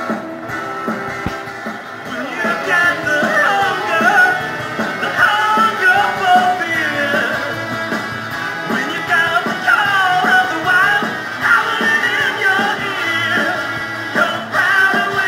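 Rock-and-roll style commercial jingle music, with a singing voice coming in about two seconds in.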